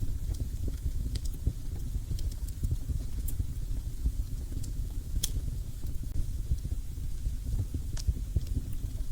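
Wood fire burning in a fireplace: a steady low rumble of flames with a few sharp crackling pops, the loudest about five seconds in.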